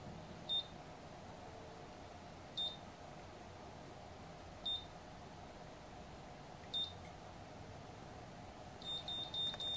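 VS Sassoon Curl Secret automatic hair curler beeping as it times a curl: a single short high beep about every two seconds, then a quick run of four beeps near the end, signalling that the curl is done and the hair can be released.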